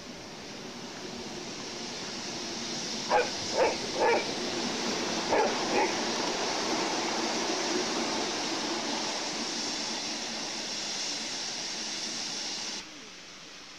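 Five short barks in two quick groups, three then two, over a steady rushing background noise that swells and then drops away abruptly near the end.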